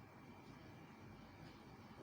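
Near silence: room tone with a faint steady high whine and a few faint ticks.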